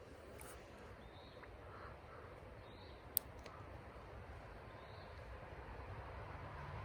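Faint outdoor ambience at a creek with a few faint, short bird calls and one sharp click about three seconds in. A low hum starts to build near the end.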